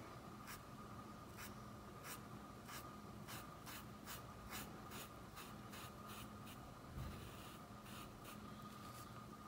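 A fine paintbrush stroking white paint onto cotton cloth: short, faint scratchy strokes, one or two a second, as a rose petal is outlined.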